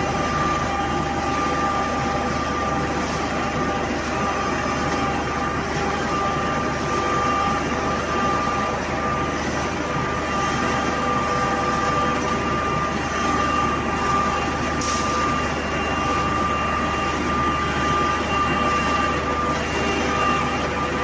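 Machinery of a fish and pet feed processing plant running: a steady mechanical drone with several steady whining tones over it.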